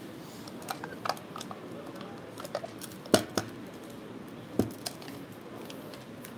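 A scatter of short, sharp clicks and taps of chips and cards being handled at a blackjack table, the loudest about three seconds in and another about a second and a half later, over a steady casino background murmur.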